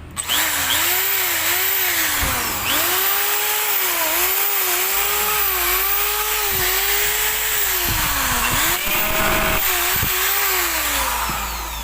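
Repaired electric drill running: its motor starts abruptly and whines loudly, the speed rising and falling over and over, then winds down near the end. It is running again after a no-power fault.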